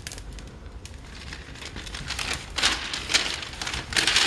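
Wood fire crackling and popping in a fireplace, the logs somewhat wet. The crackling grows denser from about halfway, with louder crinkling bursts near the end.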